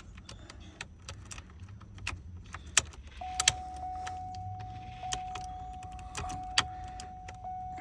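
Sharp metallic clicks and taps of a key and Allen key being worked in a sticking GM ignition lock cylinder. About three seconds in, a steady tone starts and holds.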